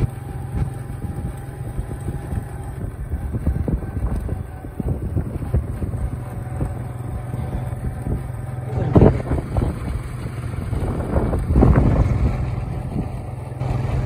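A moving vehicle's engine and road noise under steady wind rumble on the microphone, with louder surges about nine and twelve seconds in.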